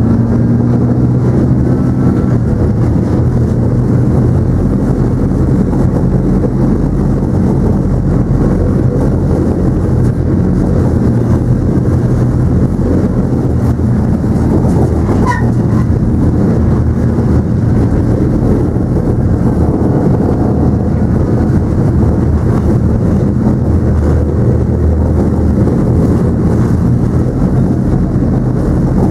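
Leopard 2 tank's V12 diesel engine and running gear, heard from aboard the moving tank as a loud, steady low drone.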